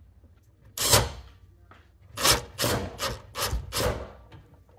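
Ryobi cordless driver run in short trigger bursts, one about a second in and then five in quick succession, rattling a nut up onto a camper's elevator bolt to fasten the body to the frame.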